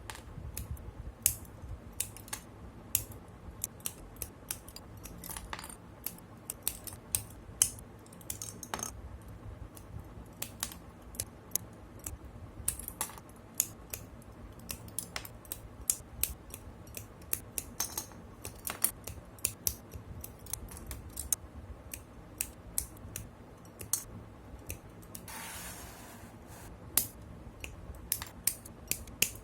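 Plastic model kit parts being snipped from their runners with hobby nippers: irregular sharp plastic clicks, a couple a second, with a brief scraping rasp about three-quarters of the way through.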